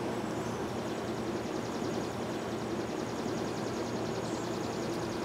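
Honeybee colony humming steadily from an open top-bar hive as its combs are lifted out, a calm, even hum that the beekeeper calls purring. A faint fast ticking sits high above it.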